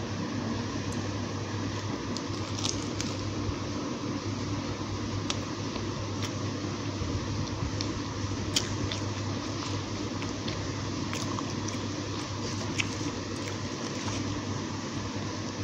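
Someone chewing a fried samosa, giving scattered small crisp clicks and crunches over a steady low hum and hiss.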